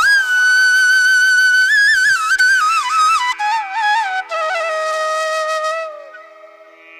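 Background music: a flute plays a slow melody of long held notes with ornamented turns, falling in pitch and fading out about six seconds in.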